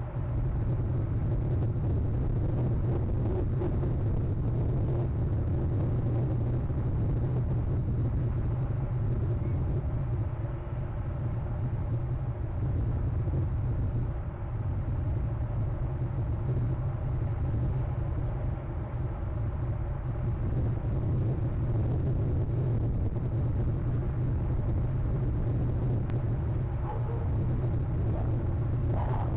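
A steady low rumble with a fainter hiss above it.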